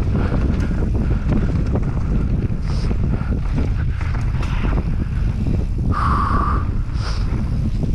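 Mountain bike descending a rough trail at speed: steady wind rush on the camera microphone with the rattle and knocks of the bike over the ground. A short high squeal cuts in about six seconds in.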